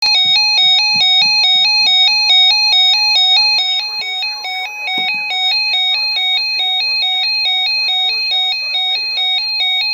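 Electronic music: a two-note synth figure alternating evenly several times a second, with low drum beats under it for the first two seconds and one low hit about five seconds in.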